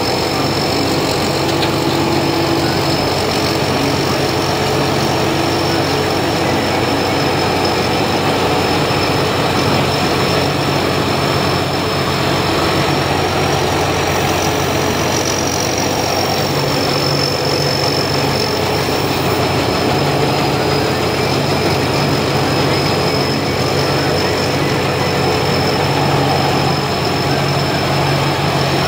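Sincharoenyont tracked rice combine harvester running steadily under load as it cuts and threshes lodged rice: engine and threshing machinery drone, with a thin steady high whine over it.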